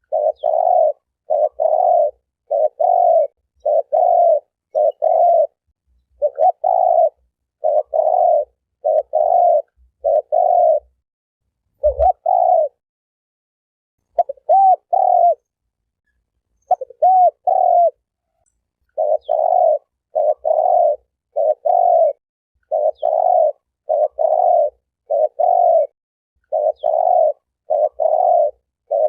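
Turtle dove cooing: short coos repeated about once a second, with a few brief pauses. A low thump comes about twelve seconds in.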